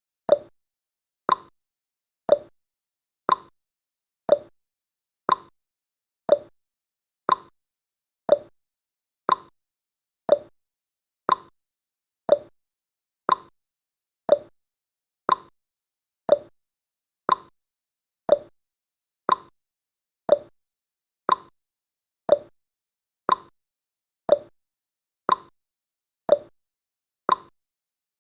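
Ticking-clock sound effect of a countdown timer, one short, sharp tick every second at a steady rate.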